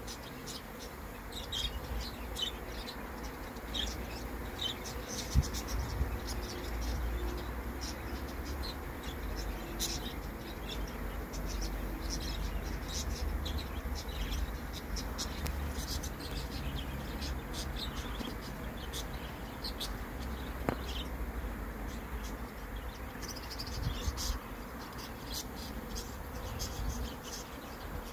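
Many honeybees buzzing as they fly in and out at a hive entrance: a dense, steady hum with short high chirps scattered throughout.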